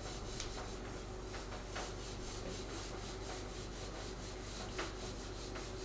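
Steady low electrical hum and hiss of the recording's background, with a few faint ticks.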